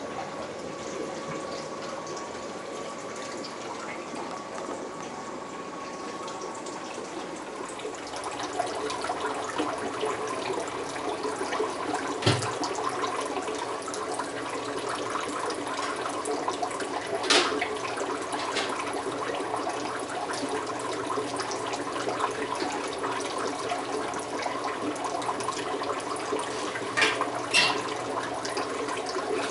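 Steady running water from a room of aquarium tanks and their water system, louder from about eight seconds in, with a few sharp knocks or clicks.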